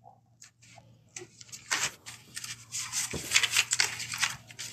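Irregular scratchy rubbing and rustling right at a phone's microphone, starting about a second in and growing busier.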